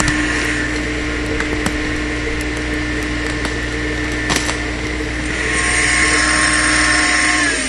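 Compact 18 hp tractor engine running steadily under load as it hauls the stump out through the pulley rigging, with scattered sharp cracks as the roots tear. It gets louder past the middle, then its pitch falls near the end as it throttles back.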